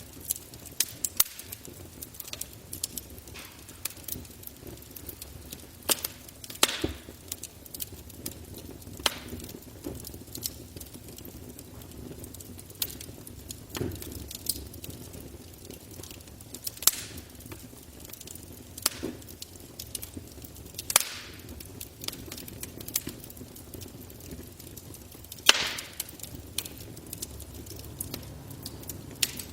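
Campfire crackling: burning wood giving off irregular sharp pops over a low steady rustle, a few pops much louder than the rest.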